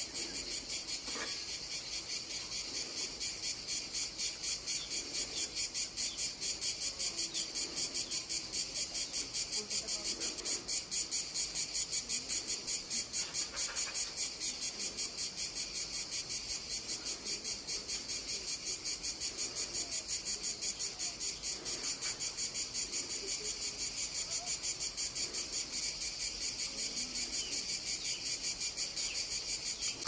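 Crickets chirping in a steady chorus of high, evenly repeated pulses.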